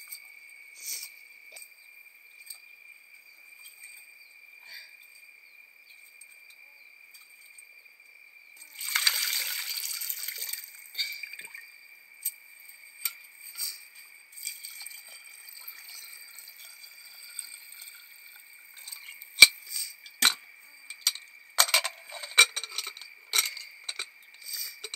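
Liquid poured for about two seconds near the middle, followed later by scattered sharp knocks and clinks of utensils. A steady high-pitched thin tone runs underneath.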